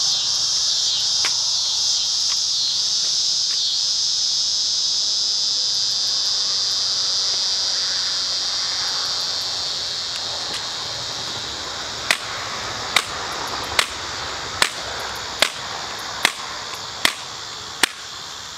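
Crickets chirping steadily. In the second half, eight sharp thuds about 0.8 s apart as an AR-15 with a screw-reinforced 3D-printed PCTPE lower receiver is slammed against grassy dirt in an impact test.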